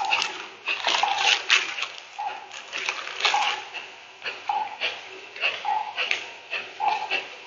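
Kapalabhati breathing: short, sharp forced exhalations through the nose with passive inhalations between them, two or three a second in a steady rhythm.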